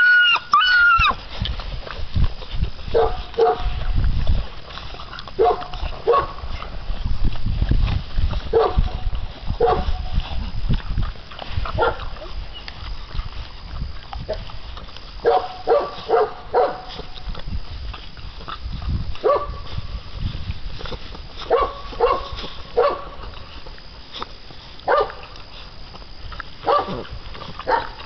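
Six-week-old American Bandog Mastiff puppies barking and yelping in short calls every second or so as they tug at a chicken on a string, with a high whining squeal right at the start.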